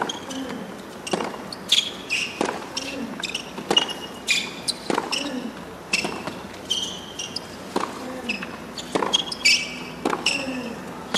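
Tennis rally on a hard court: sharp racket strikes on the ball trading back and forth about every 1.2 seconds, with ball bounces and short squeaks of shoes on the court surface between the hits.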